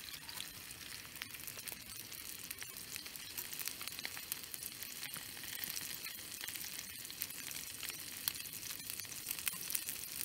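Food sizzling in a frying pan with the heat turned down: a steady high hiss with fine crackles and pops throughout.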